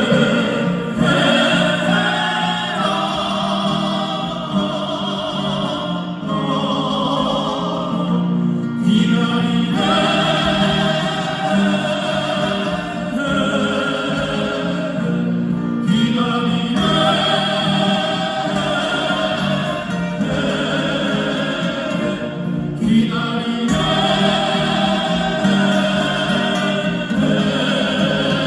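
Live performance by a group of acoustic guitars with a melody sung or carried over a steady strummed accompaniment, in phrases a few seconds long.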